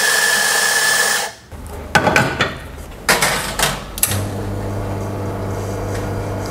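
Espresso grinder grinding a single dose into the portafilter, cutting off about a second in. Then a few knocks and clacks as the portafilter is handled and locked into the espresso machine's group head. About four seconds in, the machine's pump starts a steady low hum as the shot begins to brew.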